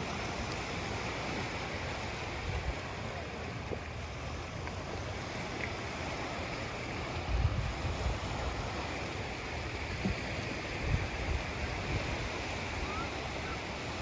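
Small waves lapping and washing onto a sandy shore as a steady surf hiss, with wind buffeting the microphone in gusts, most strongly about halfway through and again near the end.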